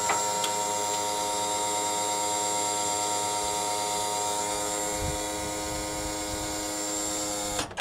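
Bus wheelchair lift's electric motor running with a steady whine as the lift is raised, cutting off near the end with a clunk. It runs smoothly, the lift working normally after its wiring repair.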